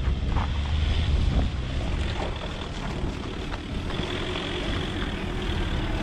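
Citroen C8 minivan driving slowly along a grassy dirt track and drawing near, its engine running low under wind rumbling on the microphone.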